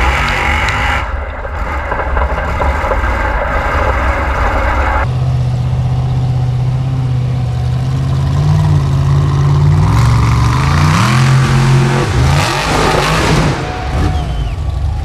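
Formula Offroad buggy engine running hard as it climbs a dirt hill. The sound changes abruptly about five seconds in, to a steady engine note that rises in pitch around eleven seconds in as the engine revs up, then gives way to rougher, noisier running near the end.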